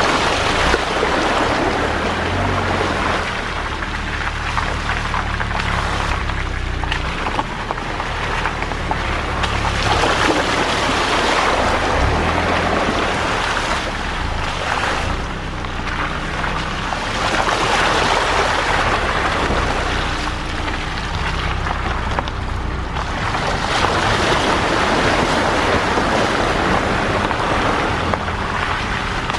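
A car heard from inside the cabin as it is driven over a rough unpaved track. A steady low engine hum runs under tyre and road noise that swells and eases every few seconds.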